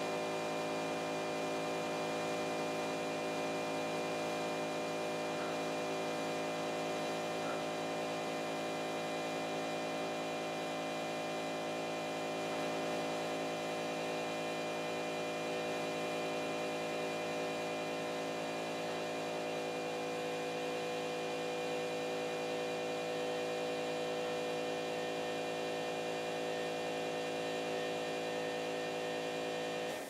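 Steady electrical hum of a CNC pen-drawing machine, a dense cluster of fixed tones that holds at one level while the pen draws.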